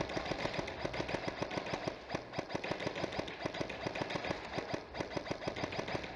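Airsoft guns firing semi-automatic in quick succession: a steady, rapid string of sharp shots, about nine a second.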